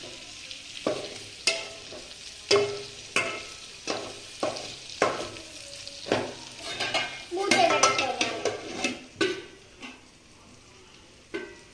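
Steel spoon stirring chicken in an aluminium pot, scraping and knocking against the pot's side about once every half second. There is a quicker run of ringing metal clanks about seven to nine seconds in, then it goes quieter.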